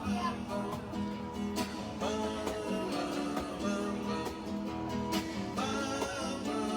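A live performer playing acoustic guitar and singing.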